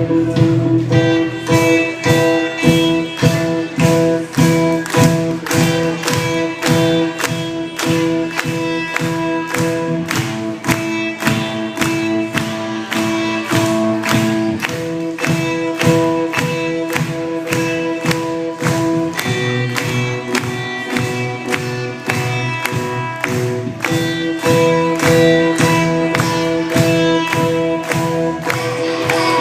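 Band of beginner players performing an instrumental passage: a steady beat under held chords that change every few seconds.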